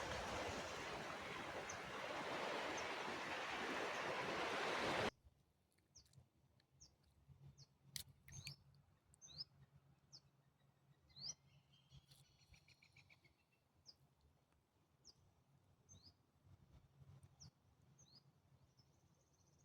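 A steady rushing noise, like wind or running water, cuts off abruptly about five seconds in. After it, wild birds give scattered short, rising chirps, with a brief trill a little later, against a quiet background.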